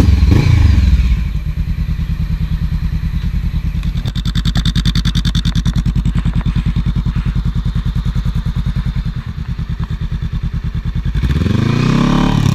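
A 2014 Honda CB500F's parallel-twin engine idling through a Delkevic carbon fibre slip-on exhaust. It is blipped briefly right at the start and revved up again near the end.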